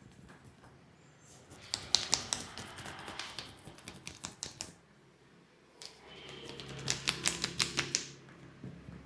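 Hands tapping and slapping quickly on a head during an Indian head massage, in two bursts of rapid sharp taps, the second starting about six seconds in.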